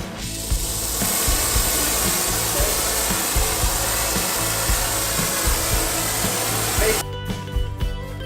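Soldering torch flame hissing steadily while heating a refrigeration coil joint, cutting off abruptly about seven seconds in. Background music plays underneath.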